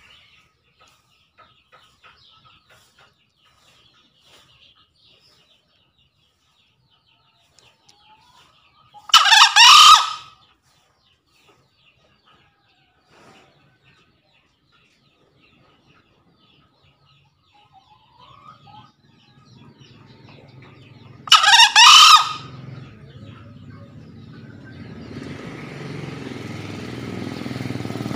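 Male green junglefowl crowing twice, about twelve seconds apart, each a short hoarse call of about a second: the territorial crow a cock uses to challenge a rival. A low rumble builds in the background from about two-thirds through.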